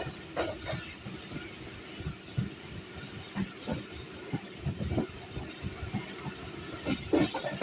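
Passenger train running along the track, heard from on board: a steady rumble of wheels on rail with irregular clattering knocks, the loudest right at the start and about seven seconds in.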